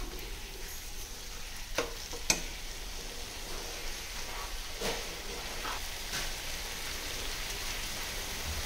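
Chicken in a dry-coconut masala paste sizzling in a non-stick pan as it is fried to bring the oil out, with a steady hiss. A slotted spatula stirring it gives a few sharp clicks and scrapes against the pan, the loudest about two seconds in.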